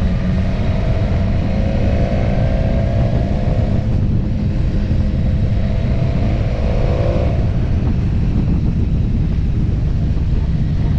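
Motorcycle running steadily under way, with a heavy low rumble throughout.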